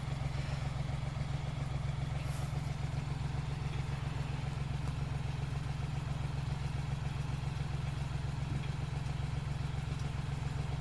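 A steady, unchanging low mechanical hum, like an engine or motor running at idle.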